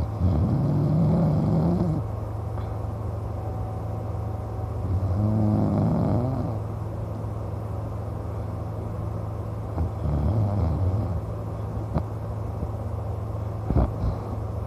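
A man snoring in his sleep, three snores about five seconds apart over a steady low hum, with two short clicks near the end.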